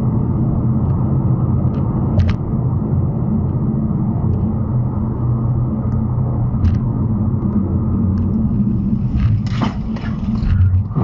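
Steady low road and engine drone inside a car cruising at highway speed, with a few faint ticks and a brief rush of hiss about nine seconds in as the car slows.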